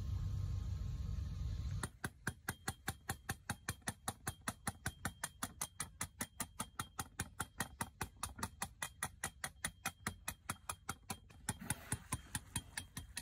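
Low rumble of a boat moving through water, cut off about two seconds in by a rapid, even train of sharp clicks, about five a second.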